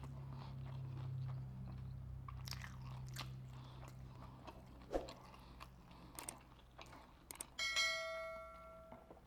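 Close-miked chewing and crunching of battered fried lobster tail, with scattered sharp crunches. Near the end comes one bright ringing clink that fades over about a second and a half.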